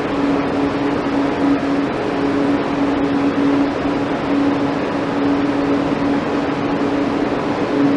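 Steady mechanical hum over a loud hiss, with a low tone that drops out briefly every second or two, like ventilation or machinery running.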